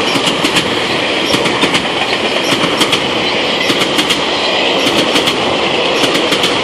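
GO Transit bilevel passenger coaches passing at speed: a steady rolling rumble of steel wheels on the rails, with rapid, irregular clicks as the wheels cross the rail joints.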